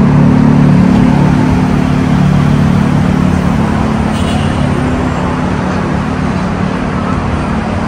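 Busy road traffic with a steady low engine drone that fades out about halfway through.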